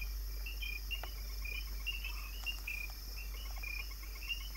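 Night-time forest insects chirping: short, high notes repeating several times a second over a steady high hiss and a low hum.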